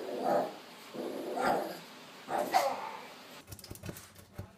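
A dog barking three times, about a second apart, the last bark sliding down in pitch; faint clicks follow near the end.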